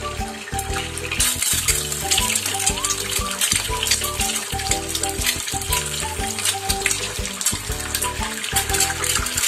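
Eggs frying in hot oil in a non-stick pan, a dense crackling sizzle that gets louder about a second in. Background music with a steady beat plays under it.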